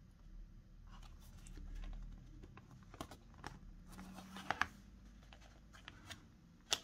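Faint handling of cardstock sheets being pressed flat and glued down by hand: soft paper rustles and scattered light clicks, a little louder about four and a half seconds in and again near the end.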